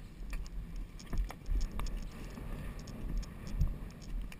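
Polo pony cantering on grass under a rider, heard from a rider-mounted action camera: irregular low thuds of hoofbeats and jolting, with scattered light clicks of tack.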